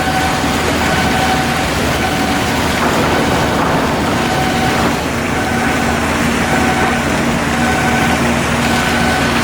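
A heavy engine running steadily while a warning beeper sounds over it, short beeps repeating about once a second.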